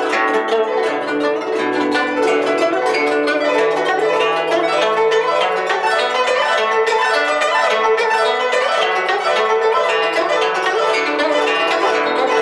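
Guzheng (Chinese plucked zither) played solo: a dense, quick run of plucked notes ringing into one another, with the left hand pressing strings behind the bridges.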